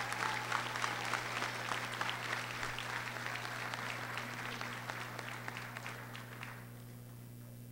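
Crowd in the gymnasium bleachers applauding with dense, scattered clapping that thins out and dies away about six and a half seconds in. A low steady hum lies underneath.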